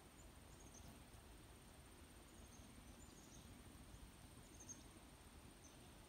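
Faint, steady high insect trill with a few brief, high chirps scattered through it, over a soft low rumble of background air.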